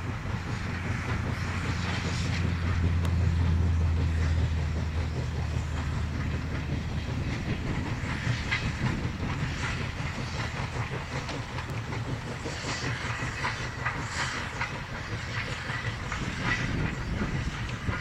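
Narrow-gauge steam train of East Broad Top 2-8-2 No.15 passing at a distance: a steady low rumble in the first few seconds, then the wheels of the cars clicking over the rail joints through the second half.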